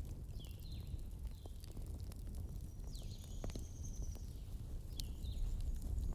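Bonfire crackling, with scattered sharp pops over a steady low rumble. A few short, high chirps sound over it, with one longer high note about halfway through.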